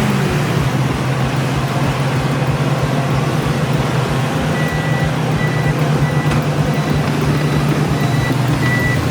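A heavy vehicle's engine running steadily at a low pitch, with a reversing alarm beeping repeatedly from about halfway through.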